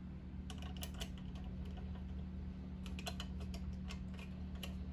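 Light, irregular clicks and taps of fingers handling an LED fog light pod and its mounting bolt and nut, coming in small clusters, over a steady low hum.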